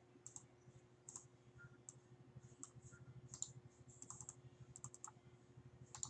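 Faint, sharp clicks of a computer mouse at irregular intervals, with a quick cluster of them about four seconds in, over a faint steady hum.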